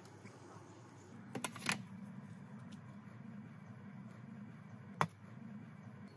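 Stainless steel steamer tiers and lid knocking: a couple of clinks about a second and a half in, then one sharp clink near the end as the glass lid is set on, over a steady low rumble.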